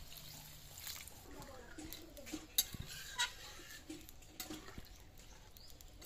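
Water splashing into a steel kadai of thin vegetable curry at the start, then a metal ladle stirring it, scraping and clinking against the pan's side, with a few sharp clinks near the middle.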